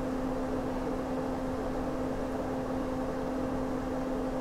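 A steady machine hum: one constant low tone with a second tone above it, over a low rumble and faint hiss.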